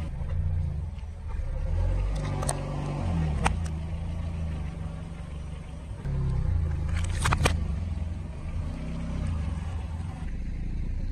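Car engine running at low revs as the car rolls over objects on asphalt. A few sharp cracks and pops come from items crushed under the tyre: one about two and a half seconds in, another a second later, and a quick double crack about seven seconds in.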